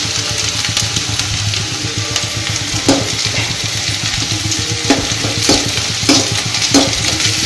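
Sliced shallots frying in coconut oil in an aluminium kadai, sizzling steadily while a steel spoon stirs them. The spoon knocks against the pan five times in the second half, each a short metallic clink.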